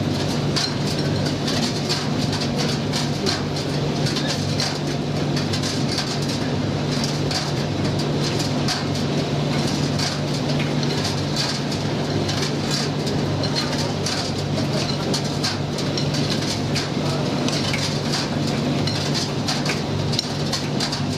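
Commercial gas tumble dryer running mid-cycle with its gas burner lit: a steady motor-and-drum hum with a constant irregular clatter of small clicks as the load tumbles.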